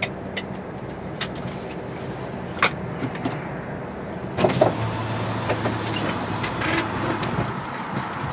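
Inside the cab of a vehicle moving in slow traffic: steady engine and road noise with scattered clicks and rattles, a few quick ticks at the start and a brief clatter about halfway through.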